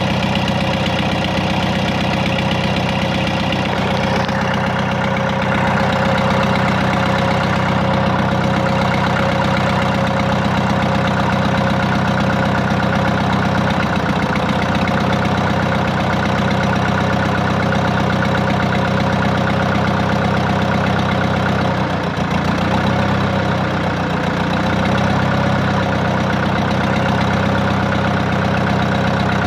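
AGCO Allis 5680 tractor's four-cylinder diesel engine idling steadily on its first run after a rebuild with new piston rings, head gasket and rebuilt Bosch injectors. The note wavers briefly about two-thirds of the way through.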